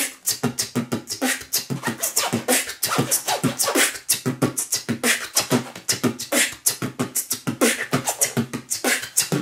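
Beatboxing with zipper scratches: a padded vest's zipper is run rapidly up and down as a DJ-style scratch, mixed with mouth-made drum sounds, in a fast sixteenth-note pattern of short hits.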